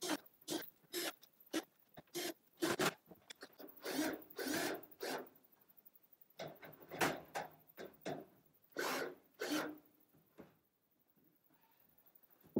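Irregular bursts of scraping and rubbing from hand work on a corrugated-metal shower enclosure, dying away to near quiet in the last second or two.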